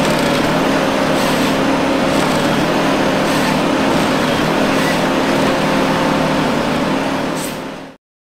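Ponsse Scorpion King forest harvester working: its diesel engine and hydraulics run steadily under load, with a few held whining tones in the sound. The sound fades out about a second before the end.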